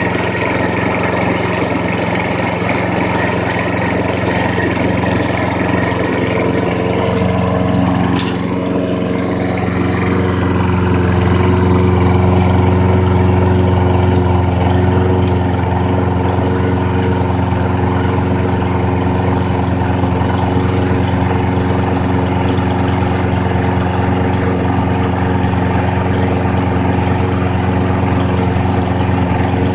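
Small lawnmower engine running steadily on a freshly rebuilt carburetor. About eight seconds in its speed dips briefly and recovers, and it runs a little louder for a few seconds before settling back to an even note.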